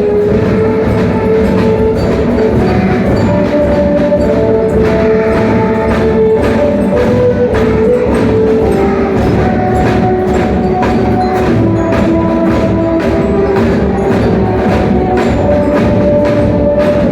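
Children's drum band playing: drums and percussion keep a steady beat under a melody of held notes moving up and down in steps.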